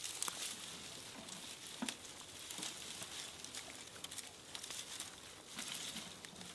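Dry twigs and branches rustling and crackling with many small snaps and clicks as they are handled and stacked upright into a pile.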